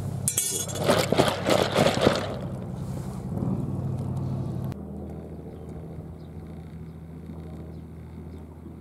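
A steady low hum of an idling engine, with a burst of loud rustling and crackling noise in the first two seconds. The sound changes abruptly a little past halfway, leaving a quieter low engine hum.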